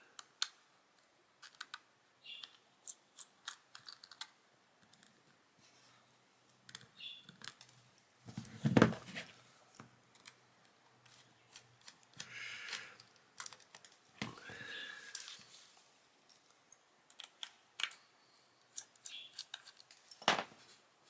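Small clicks, ticks and light scrapes of a miniature cross-point screwdriver working the tiny screws out of a compact camera's back cover, with the screws and tools set down and handled, and a few louder scraping handling noises.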